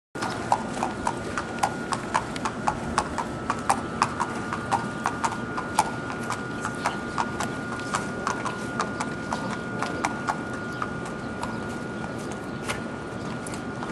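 A horse's hooves clip-clopping at a walk on pavement, a regular beat of about three strikes a second that thins out in the last few seconds. A faint steady high tone runs underneath.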